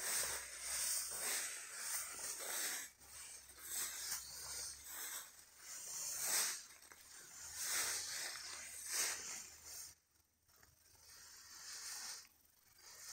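Tall grass rustling as someone wades through it on foot: a run of swishes roughly once a second, one per stride, with a short lull about ten seconds in.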